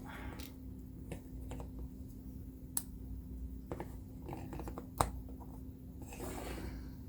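Small plastic toy robot figures being handled and stood up on a surface: scattered light clicks and taps of plastic, the sharpest about five seconds in, and a brief rustle near the end.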